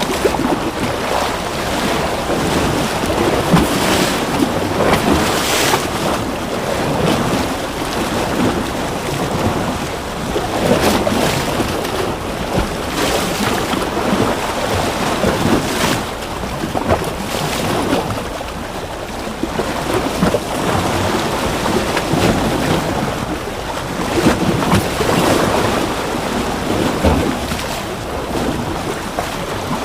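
Ocean waves washing and splashing continuously, the surf swelling and easing every few seconds.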